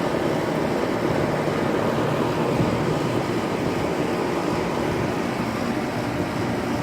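Outdoor air-conditioner condensing units running: a steady, pretty loud hum of compressor and condenser fan.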